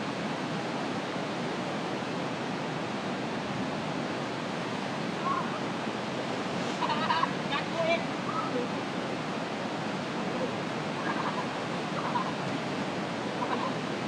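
Waterfall rushing steadily, with a few brief shouts from people over it, loudest about seven to eight seconds in.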